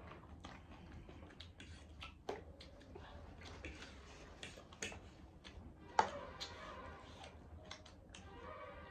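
Forks clicking and scraping against plates as two people eat noodles, a scatter of small irregular clinks with a sharper one about six seconds in.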